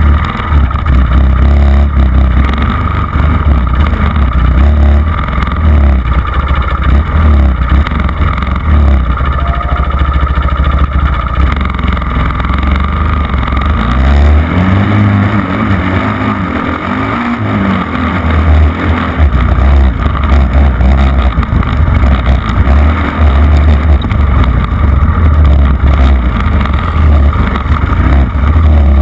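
Dirt bike engine running and revving as it rides over a sandy motocross track, with heavy wind rumble on the bike-mounted camera's microphone. Around the middle the wind rumble eases for a few seconds and the engine's pitch can be heard rising and falling.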